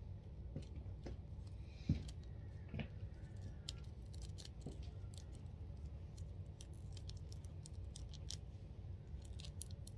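Small plastic clicks and taps from a plastic Gogeta action figure being handled and its joints moved, with a sharper knock about two seconds in, over a steady low hum.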